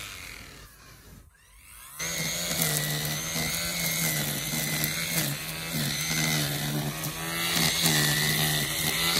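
Makita DUR190U 18V brushless line trimmer spinning its cutting line through grass: a steady high whine whose pitch dips briefly now and then. It dies away over the first two seconds, then comes back abruptly at full speed.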